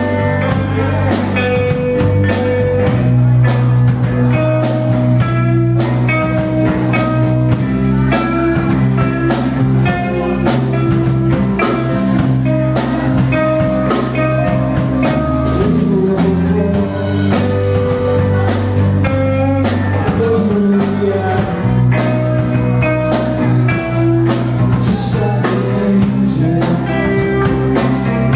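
Live rock band playing: electric guitar and bass guitar over a drum kit keeping a steady beat.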